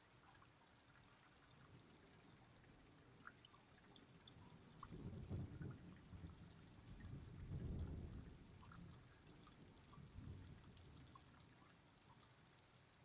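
Quiet rain with scattered drips. A few low rumbling swells come and go in the middle.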